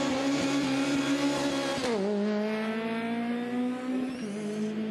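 BMW open-wheel single-seater race car accelerating hard, its engine note climbing and dropping sharply at upshifts about two seconds in and again about four seconds in.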